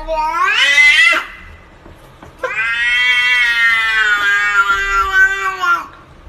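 Domestic cat meowing: a rising call that breaks off about a second in, then one long drawn-out meow of about three and a half seconds that drops slightly in pitch at its end.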